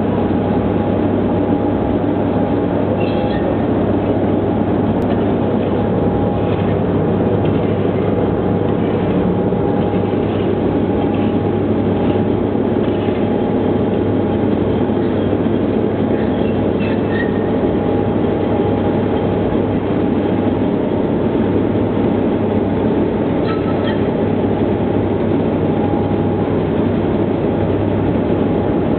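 Small feed pellet line machinery running with a steady drone: a constant whine over a low hum, with a few faint clicks now and then.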